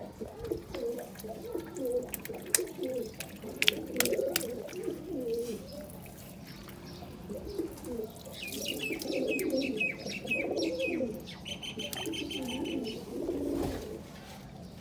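Pigeons cooing over and over, with a few brief higher bird chirps about two-thirds of the way through. A few sharp clicks can be heard in the first few seconds.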